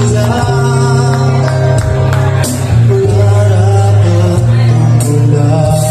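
Live band music through loudspeakers: singing over acoustic guitar and a heavy, steady bass line.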